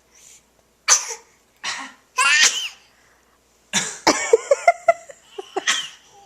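A baby sneezes sharply about a second in, followed by a short high-pitched vocal sound and then a run of laughter.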